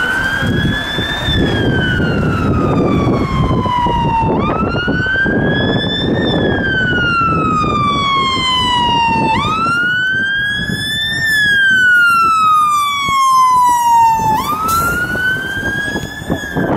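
London Fire Brigade Mercedes fire engine's siren on wail, each sweep rising quickly and falling slowly, repeating about every five seconds, with the engine and road noise underneath. It grows louder as the appliance comes close.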